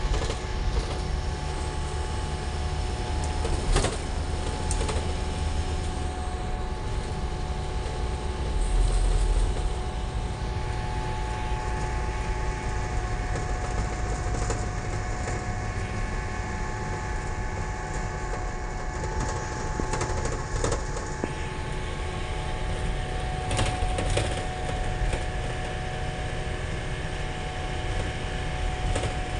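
Cabin noise inside a moving Isuzu minibus: engine and road rumble with a steady hum, and a few short rattles or knocks from the body, one about four seconds in and one near the end.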